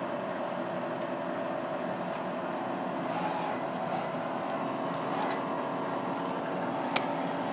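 Bridgeport Explorer X-26 CNC vertical mill running with a steady mechanical hum, with one sharp click about seven seconds in.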